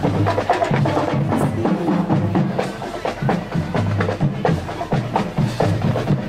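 Marching band drumline playing a parade beat, with sharp stick clicks over a repeating pattern of low drum notes.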